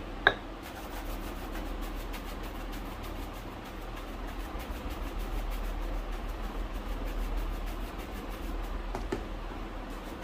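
Quick, even rubbing strokes of shoe polishing, brush or cloth working over the leather. A sharp tap just before the strokes start and a lighter knock near the end.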